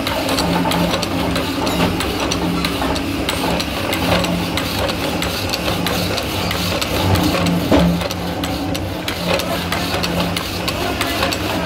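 Power hacksaw machine running, its crank-driven blade frame stroking back and forth through an iron round bar, with a regular pulsing beat over a steady machine hum and short scraping ticks on each stroke.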